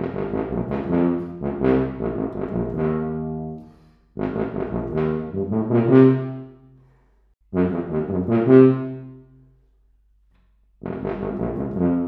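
Wessex Chicago-Presence 6/4-size piston CC tuba, with a smaller bell than the regular Chicago, playing a melody in short phrases. Three phrases are separated by brief pauses in which the notes ring out, and a fourth begins near the end.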